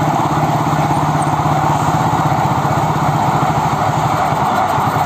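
Suzuki Raider 150 motorcycle's single-cylinder four-stroke engine running steadily at a constant speed, with no revving.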